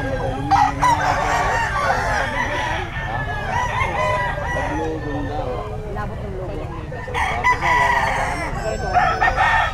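Many roosters crowing over one another, with chickens clucking, over a steady low rumble; the crowing swells louder about a second in and again near the end.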